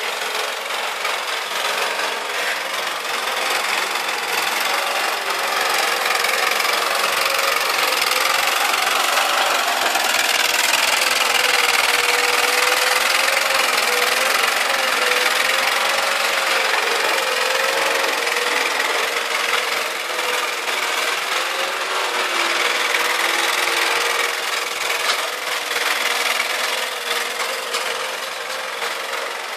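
Vermeer mini skid steer engine running steadily under load, with a dense rattling and scraping as its ripper tears through soil; the sound swells louder through the middle and eases off near the end.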